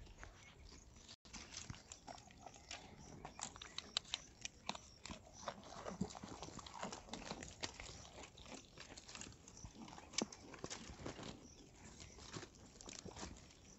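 Goats browsing in dry thorn scrub: a faint, irregular crackling and snapping of dry twigs and leaves, with chewing.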